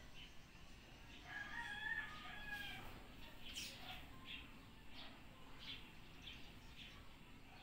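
A rooster crowing faintly, one call about a second and a half in, followed by a string of short high bird chirps about twice a second.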